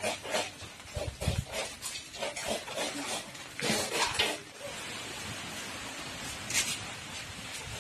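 Open wood fire burning under a large pot of water: a run of irregular knocks and crackles, then from about halfway a steady hiss.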